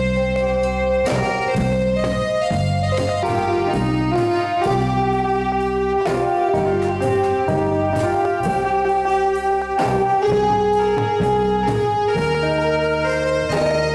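Live band music: a Roland electronic keyboard plays a held, organ-like melody over a steady drum beat and bass guitar, amplified through horn loudspeakers.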